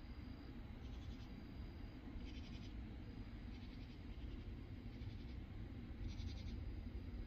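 Night insects calling: short, high rasping calls repeated about once a second, each a fraction of a second long, over a steady low rumble.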